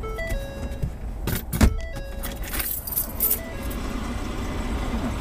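A short electronic tune of stepped beeping notes repeating about every two and a half seconds, over a steady low rumble. About a second in, and again near the three-second mark, come bursts of rattling and jangling with a sharp knock.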